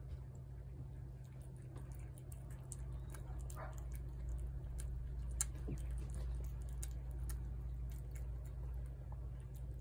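A feral cat chewing wet food from a plate: small, wet clicks, with one sharper click about five and a half seconds in, over a steady low hum.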